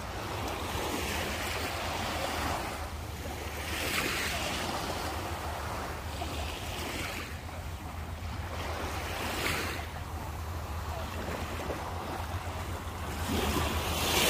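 Small sea waves washing at the shore, swelling every few seconds, with wind rumbling on the microphone.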